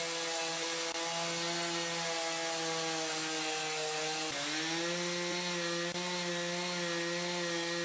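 Chainsaw with a mini mill attachment ripping lengthwise through an old timber, the engine running steadily at high speed under load. Its pitch dips briefly about four seconds in, then recovers as the cut carries on.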